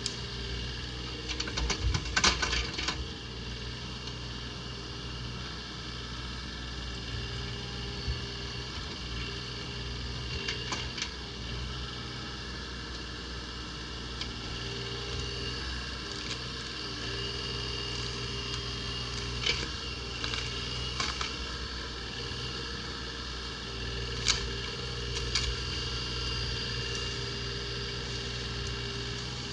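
Bobcat E35 mini excavator's diesel engine running steadily as the bucket digs and tears at a fallen pine's roots. Sharp cracks and knocks of wood and roots breaking come in clusters, loudest about two seconds in, with a few more scattered later.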